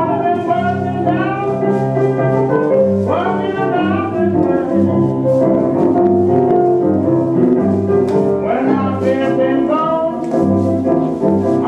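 Blues music for slow dancing playing over a sound system, with a wavering melody line that swoops up and down in phrases every few seconds over a steady low accompaniment.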